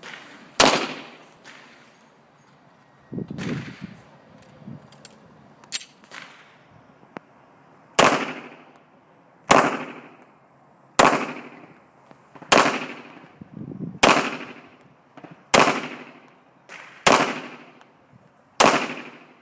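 Pistol shots fired one at a time, about ten in all, most at a steady pace about a second and a half apart, each a sharp crack with a short echoing tail. Fainter shots sound in between.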